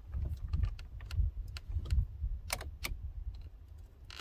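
Plastic interior door trim panel being pried and worked loose by hand: low handling rumbles with scattered sharp plastic clicks and ticks through the middle.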